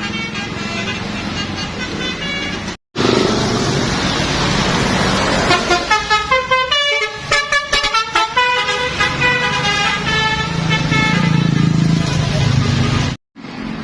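Bus 'telolet' basuri horn, a multi-tone musical horn, playing quick tunes: a run of rapid short notes in the middle and longer held notes around it. The sound cuts out abruptly twice, about three seconds in and near the end.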